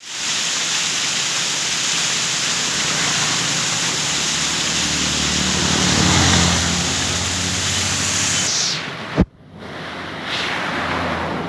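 Waterfall, a steady rush of falling water, with a low drone swelling and fading around the middle. About nine seconds in the sound breaks off sharply and comes back quieter.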